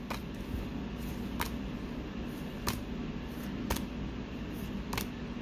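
Pokémon trading cards being handled one by one, giving five short, sharp clicks about every second or so over a steady low room hum.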